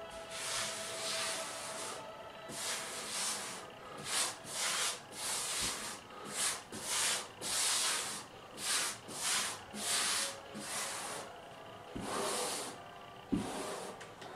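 Rubber grout float scraping across porcelain wall tile, pressing grout into the joints in a run of short rubbing strokes, about one or two a second.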